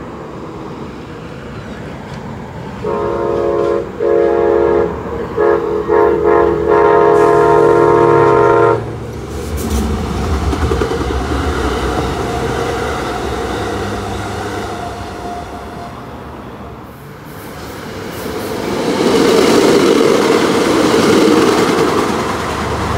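An Amtrak P42DC diesel locomotive's multi-chime air horn sounds several blasts, the last about three seconds long. The train then runs past with engine and wheel-on-rail rumble. Near the end the wheels of a second train's coaches rush past.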